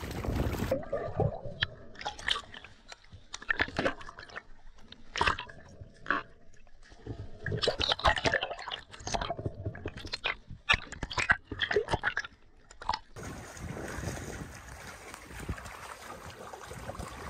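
Bubbles and crackling clicks around a freediver in the water, heard underwater, in irregular bursts of uneven loudness. Near the end it changes to the steady noise of wind and choppy water at the surface.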